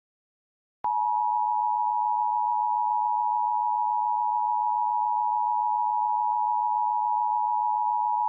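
Emergency Alert System attention signal: a steady two-note tone just under 1 kHz that starts abruptly with a click about a second in and holds unchanged, with faint crackle around it.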